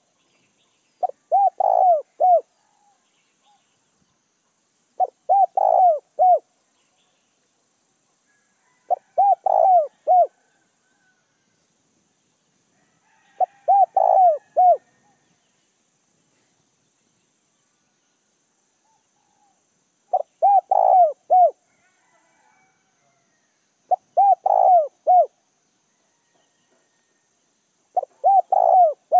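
Caged decoy spotted dove cooing: seven phrases, each a quick run of a few mellow notes, mostly about four seconds apart with a longer pause midway. This is the cu gáy decoy call used to lure wild doves.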